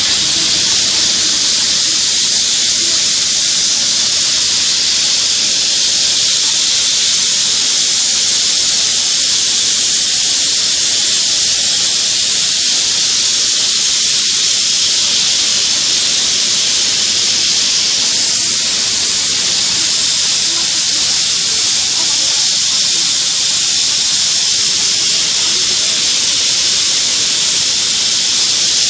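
Loud, steady hiss of pressurised gas rushing out at a blast furnace plant, unbroken and high-pitched.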